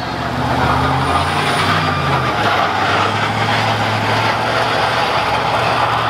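Lowered mini truck driving past with its engine running steadily, its body or frame dragging on the asphalt with a continuous grinding scrape that throws sparks.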